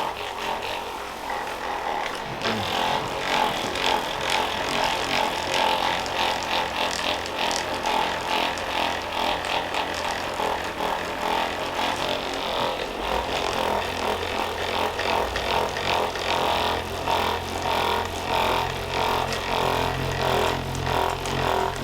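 A small motor running steadily with rapid, even pulses and a low hum that grows stronger about halfway through.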